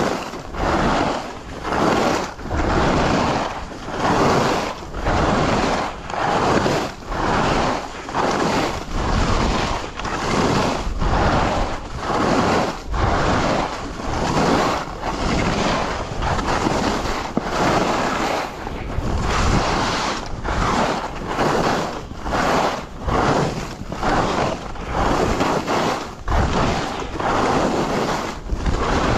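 Skis sliding over snow in quick linked turns, the noise surging about once a second, with wind on the microphone.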